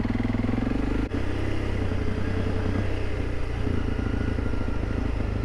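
Honda CRF300 Rally's single-cylinder engine running as the motorcycle rides along a dirt track, engine note rising and falling with the throttle, with a momentary break about a second in.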